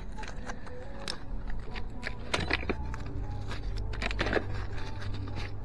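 Rusty metal scrap clinking and scraping as it is handled on a neodymium fishing magnet, with a short clatter about two and a half seconds in and another about four seconds in.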